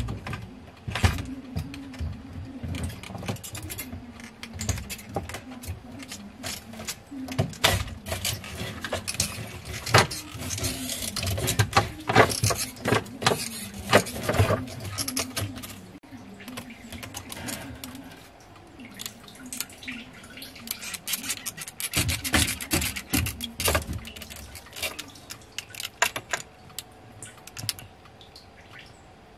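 Plastic and metal clicks, knocks and scrapes of a car's in-tank fuel pump module being worked loose and lifted out through the access hole, with fuel trickling and splashing as it comes out of the tank.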